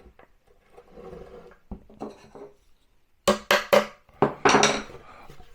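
Rustling and a light click from handling the flat-pack chipboard cabinet panel and its fittings, then three quick sharp knocks and a short burst of clattering knocks just after the middle.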